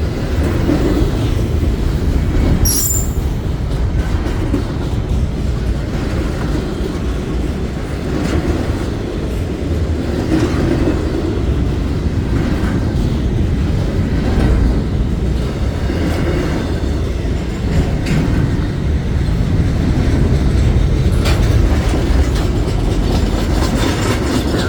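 Freight train cars rolling past at a grade crossing: a steady low rumble of wheels on rail with clickety-clack over the joints. A brief high squeal of wheel on rail comes about three seconds in.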